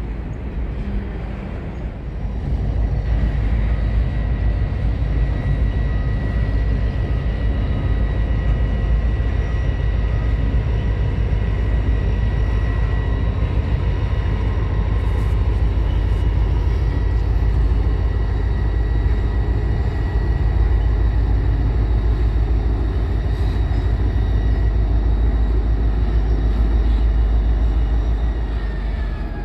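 A freight train passing over a bridge: Wisconsin & Southern diesel locomotives running with a steady low rumble over the rolling of the cars, getting louder about two seconds in.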